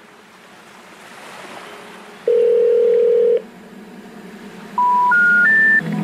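Electronic beep tones over a faint sizzle of onions sautéing in oil. A buzzy tone lasts about a second in the middle, and near the end come three short beeps, each higher than the last.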